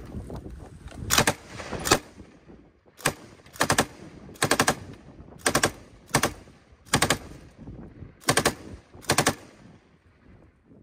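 Belt-fed machine gun firing about ten short bursts of a few rounds each, roughly a second apart, returning fire.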